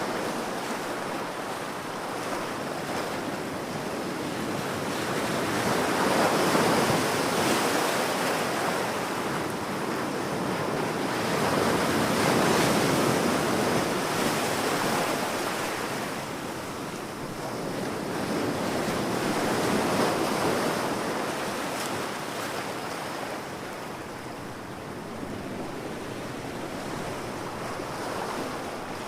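Ocean waves breaking on a beach: a continuous wash of surf that swells and falls back, the louder surges coming every six to eight seconds.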